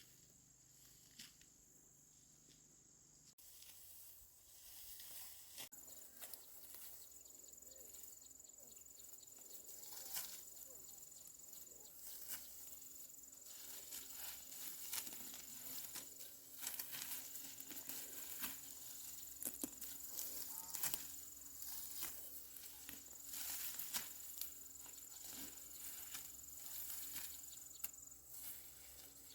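Insects trilling steadily at a high pitch, over scattered rustling and crackling clicks, with a low steady hum coming in about six seconds in.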